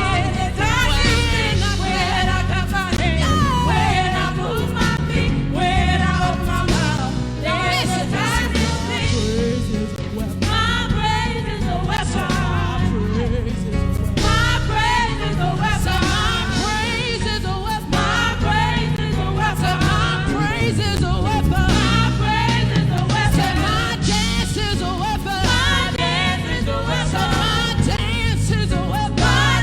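Gospel worship song: voices singing over a band's steady bass accompaniment.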